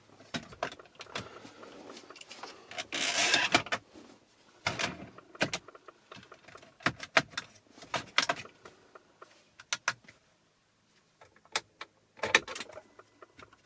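Scattered sharp plastic clicks, knocks and rattles: a small car stereo and its wiring harness being handled and fitted in the dashboard. There is a denser stretch of rustling about three seconds in.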